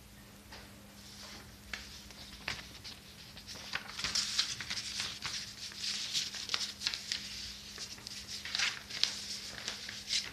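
Irregular rustling and clicking that grows busier and louder after about four seconds, over a faint steady low hum.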